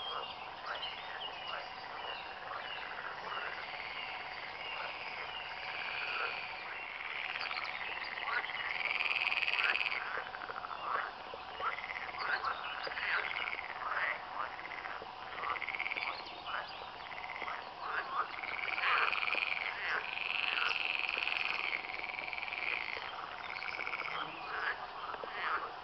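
Chorus of many frogs croaking, their pulsed calls overlapping without a break. It swells to its loudest about ten seconds in and again about twenty seconds in.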